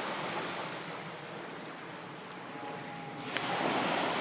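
Small waves breaking and washing onto the beach, a steady hiss that swells louder about three seconds in.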